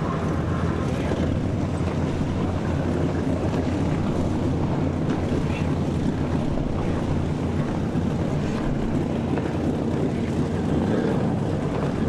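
Wind buffeting the microphone over a steady low drone of motors from the jet scooters and boats on the water, with no distinct events.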